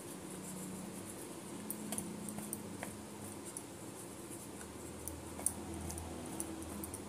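Faint scattered clicks and soft taps of spice-coated paneer cubes being tossed by hand in a steel bowl, over a low steady hum.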